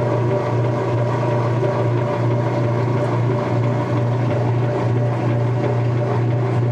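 Whirlpool Direct Drive top-loading washer draining: its motor and drain pump run with a steady hum as the water is pumped out of the tub.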